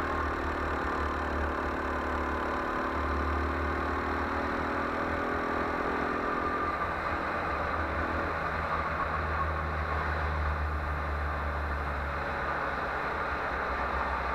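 Go-kart engine running at speed, heard from a camera mounted on the kart, with wind buffeting the microphone. The engine note changes about seven seconds in, when its higher tones drop away.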